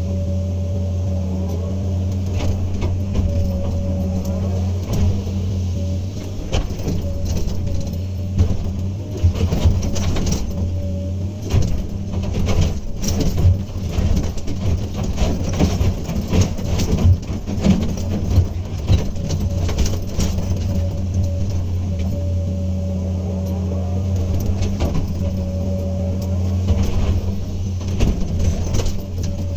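Hydraulic excavator's diesel engine running steadily with a steady whine. From about six seconds in until near the end, irregular knocks and clatter of the bucket working soil and rock break over it, then the engine runs alone again.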